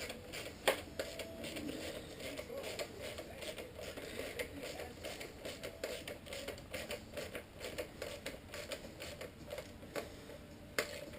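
Ratchet wrench with a 10mm socket driving in fairing bolts, its pawl clicking in a long run of short clicks, with a couple of sharper knocks.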